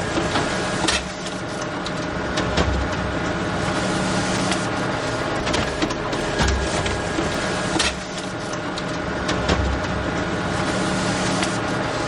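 Photocopier running: a steady mechanical whir with frequent sharp clicks and a low hum, with low thumps in a cycle that repeats about every six seconds.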